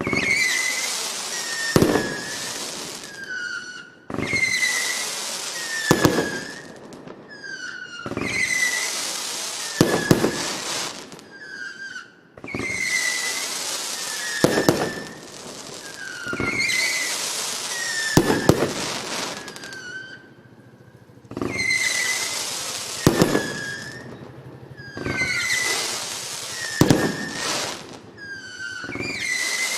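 Stellato FEE7338 'Feeriya' firework battery firing in a repeating cycle: short whistles, hissing and crackling, with a sharp bang about every four seconds.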